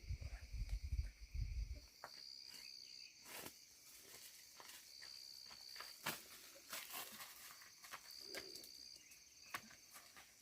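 Insects trilling steadily at a high pitch, with a higher chirping trill that comes and goes every few seconds. Low rumbling thumps sound during the first two seconds, and sharp clicks and taps are scattered throughout.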